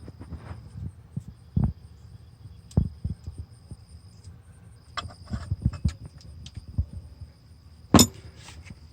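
Scattered light clicks and knocks of hands working a plastic wiring connector and its locking pins on a truck alternator, over a steady low hum; one sharp, louder click about eight seconds in.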